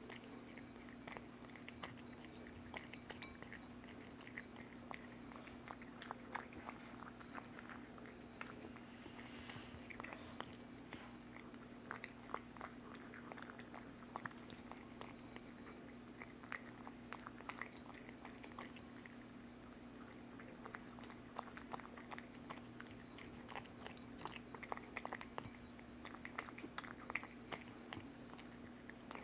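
A cat eating wet pâté cat food from a ceramic bowl, heard close up: soft, irregular wet smacks and clicks of chewing and licking, over a faint steady hum.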